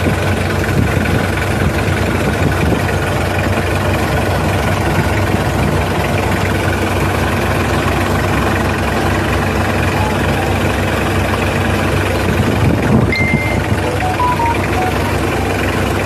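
Car engine idling roughly, running steadily with an uneven low pulse; the rough idle is the fault being shown.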